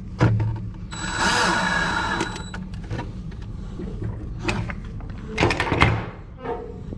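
Power drill driving screws: a run of the motor about a second in lasting about a second and a half, a second short run near the end, with knocks and clicks of handling between.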